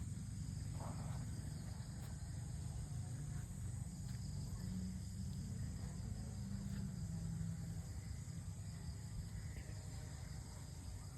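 Insects chirring steadily in a high-pitched chorus, over a continuous low rumble.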